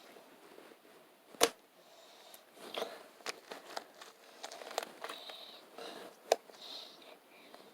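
Hands working slime, with scattered sharp clicks and pops and soft crackling as it is pressed and stretched. The loudest pop comes about a second and a half in, another near six seconds.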